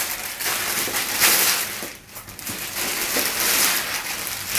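Clear plastic packaging bags crinkling and rustling as foam goalie arm guards are pulled out of them, in two spells with a brief lull about two seconds in.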